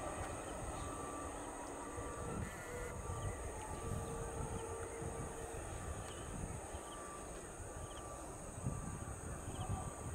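Birds chirping in short repeated calls over a steady high insect drone, with a low rumble underneath.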